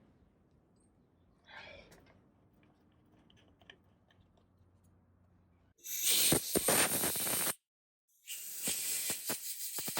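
Compressed-air blowgun blowing out a cylinder head in two loud hissing blasts: the first starts about six seconds in and lasts about a second and a half, the second starts about eight seconds in. Both begin and end abruptly. Before them there are faint handling scrapes and ticks.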